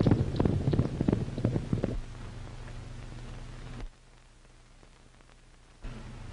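Hoofbeats of a galloping horse, a rapid run of uneven thuds for about two seconds, giving way to the steady hiss and low hum of an old film soundtrack, which drops quieter for a couple of seconds near the end.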